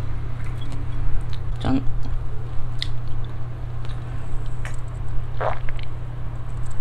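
Soju poured from a glass bottle into a shot glass, then the shot drunk with swallowing and mouth sounds, a few short separate noises over a steady low hum.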